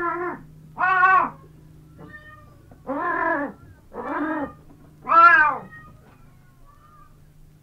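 Siamese cat meowing five times, each meow rising then falling in pitch, with a longer pause after the second; the fifth meow is the loudest.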